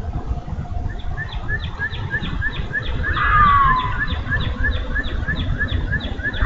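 Unidentified animal calls: a steady run of short high chirps, about three or four a second, with a louder call sliding down in pitch about three seconds in and another near the end, over a steady low rumble.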